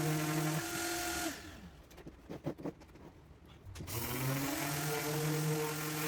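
Carts & Millie Prepmate 2 brushless random orbital sander running with its connected shop vacuum, a steady hum. About a second in, the hum is switched off and winds down, falling in pitch. A few light knocks follow, then near four seconds in the machines start again and rise back to a steady hum.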